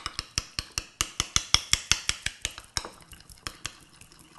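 Metal utensil stirring a thick sour-cream sauce in a glass bowl, clinking against the glass in quick, even strokes about five a second, softer in the last second or so.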